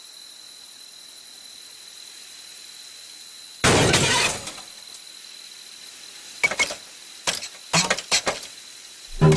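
Animated-cartoon sound effect: a sudden loud crash, with the ring of breaking glass, lasting under a second, followed a couple of seconds later by a scatter of short, sharp clicks and clinks.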